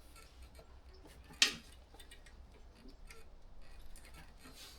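Light handling noises and small ticks from working on a lawn mower's fuel tank to take it off, with one sharp click about a second and a half in.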